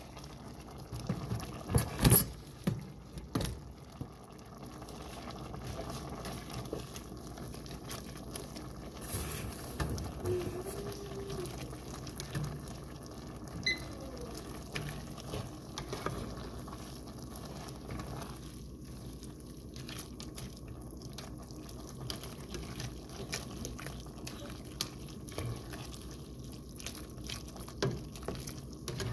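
A slotted spatula stirring macaroni and cheese with ground meat in a pot, a steady wet scraping and squelching with scattered clicks. A few sharper knocks of the spatula against the pot about two to three seconds in are the loudest sounds.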